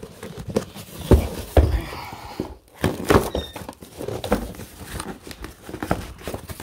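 Cardboard boxes being handled and opened by hand: irregular knocks, scrapes and rustling of cardboard, with a couple of heavier thumps about a second in.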